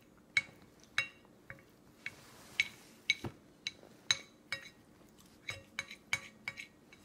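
Light, irregular clinks on a stainless steel bowl, roughly two a second, each with a short metallic ring, as a toddler's hands knock against it while eating.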